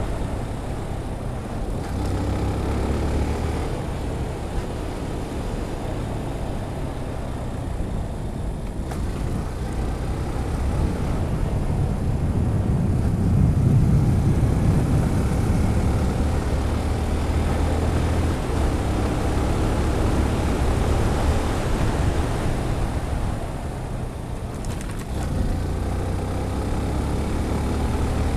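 Wind buffeting the microphone of a motorcycle helmet camera fitted with a furry windscreen, over the motorcycle running at road speed. It swells to its loudest about halfway through and eases off near the end.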